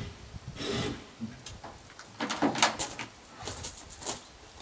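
Irregular scuffs, knocks and crunching footsteps on gravel as a person steps down off a pickup truck and walks around it.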